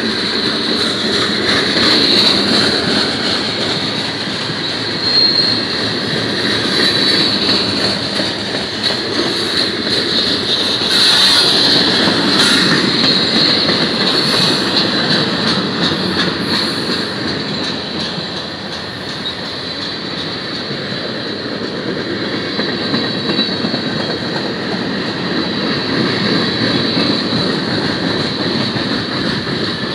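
Freight cars of a long manifest train rolling past close by: steady rumble and clatter of steel wheels on the rail, over a constant high-pitched squeal from the wheels.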